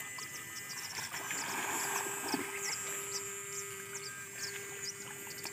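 A steady electric whine of one pitch, from the backpack electrofishing unit, starts about a second in. Over it, small animals give short high chirps a few times a second.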